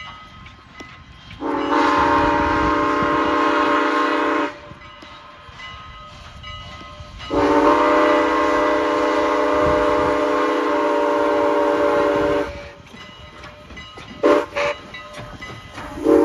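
Steam whistle of Strasburg Rail Road's Canadian National 89, a 2-6-0 steam locomotive, over the low rumble of the approaching train. It blows a long blast, a longer one, two brief toots, then another long blast near the end, close to the long-long-short-long grade-crossing signal.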